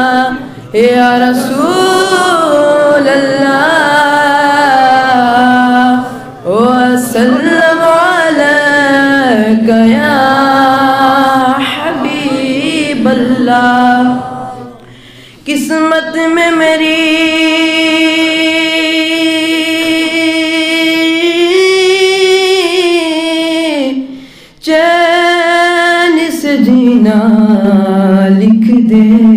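A boy's solo voice singing a naat unaccompanied. The phrases are long and ornamented, with sliding, held notes, and he breaks four times for a short breath.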